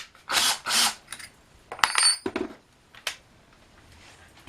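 Small metal tools and hardware handled on a workbench: two short scraping rattles, then a sharp metallic clink that rings briefly about two seconds in, followed by a few more knocks and clicks.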